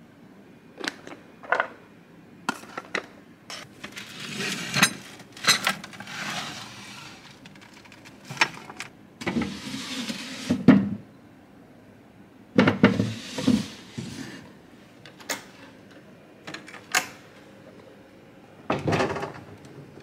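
Short clicks, knocks and scrapes of hotel-room fittings being handled, among them a tea canister and a wooden drawer sliding open about halfway through.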